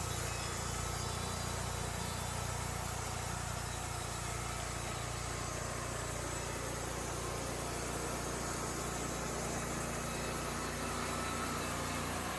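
An engine idling steadily, with a steady hiss over it.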